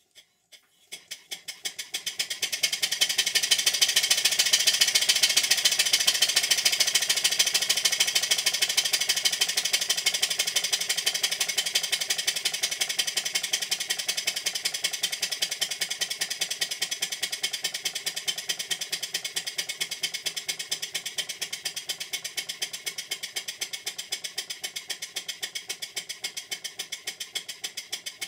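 Stuart Models 5A single-cylinder model steam engine running on compressed air while being run in: a steady stream of rapid, even exhaust beats with a hiss. It picks up speed about a second in, is loudest a few seconds later, then slowly grows quieter.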